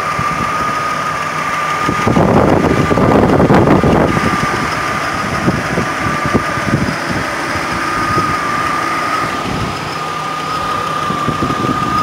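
Nissan VG33E 3.3-litre V6 idling with the right valve cover off, its valvetrain still giving a light tick from freshly cleaned hydraulic lifters that are expected to quiet once they fill with oil. A steady high whine runs throughout, and the clatter grows louder for a couple of seconds about two seconds in.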